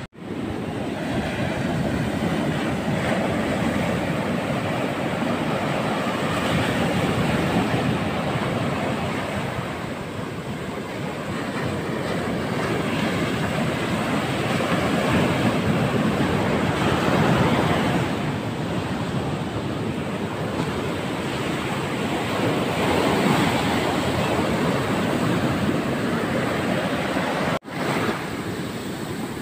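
Ocean surf washing onto a beach, a steady rush of noise that swells and fades with the waves. It cuts out briefly just after the start and again near the end.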